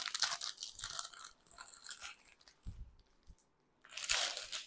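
Clear plastic packet crinkling as a folded saree inside it is picked up and turned over, in irregular bursts with the loudest about four seconds in. A few soft thuds of handling come in between.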